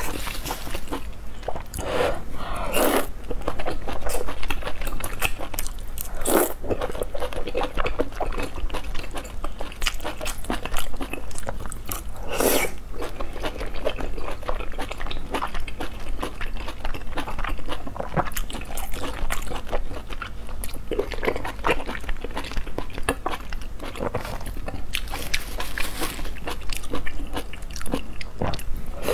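Close-miked eating: a person biting into and chewing soft, chewy braised lamb intestines, a steady run of wet smacking and mouth clicks, with the occasional louder slurp as a long strand is sucked in.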